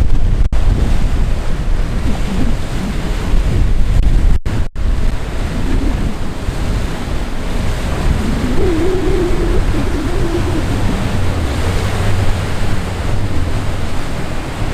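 Turbulent canal water churning through standing waves, with boat wakes rushing and wind buffeting the microphone, under the low drone of outboard engines. The sound briefly cuts out at the edits, about half a second in and twice around four and a half seconds in.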